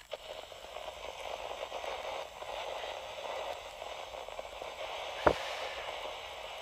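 Vinyl record surface noise: a steady hiss and crackle, fading in over the first second, with one sharp pop about five seconds in.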